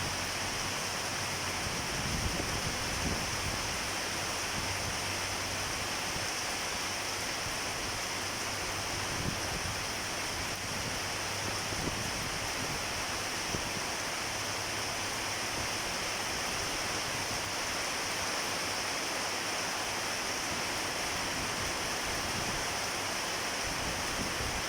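A storm's wind and rain: a steady, unbroken rushing noise.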